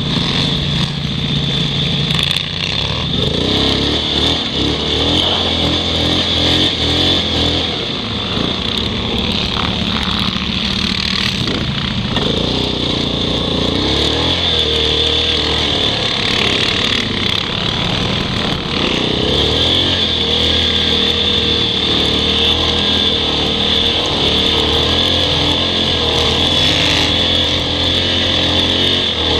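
ATV engines running and revving as the quads ride through snow, the engine pitch rising and falling with the throttle.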